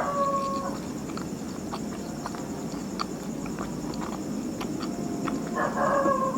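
Close-miked chewing of soft, thick sweet pancake (martabak manis), with wet mouth and lip clicks scattered throughout. Two short pitched sounds, one at the start and one near the end, stand out above the chewing.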